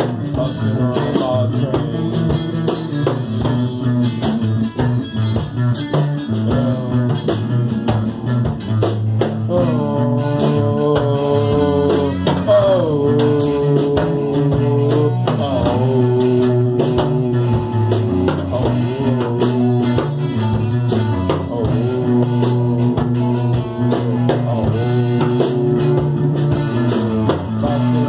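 Instrumental band jam: electric guitar playing sustained lead notes with string bends over a bass guitar line and a steady djembe rhythm.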